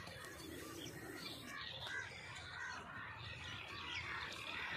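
Birds chirping and calling, a busy chorus of many short notes.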